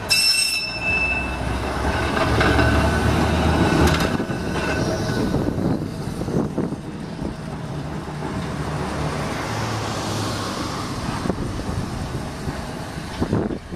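Blackpool Railcoach 680, a heritage single-deck tram, running past close by, its wheels and motors rumbling along the rails, loudest in the first few seconds. A brief high ringing tone sounds right at the start.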